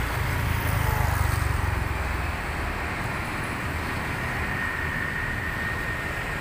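Road traffic at a roundabout, motorcycles and cars going by. One vehicle passing close makes a louder low rumble in the first two seconds.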